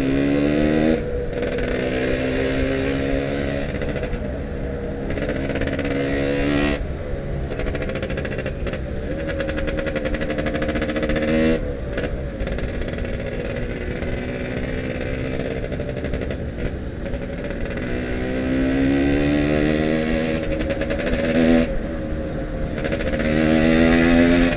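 Yamaha RX-King's single-cylinder two-stroke engine pulling the motorcycle along, its pitch climbing repeatedly as it accelerates. Short throttle-off breaks come several times between the pulls.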